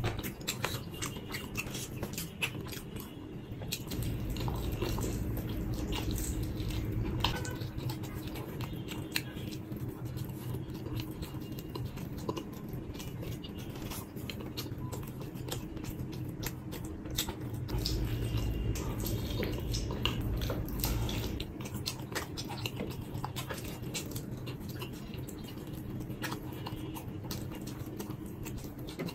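Close-miked eating: wet chewing and biting with many small mouth clicks as a man eats pizza and fried chicken.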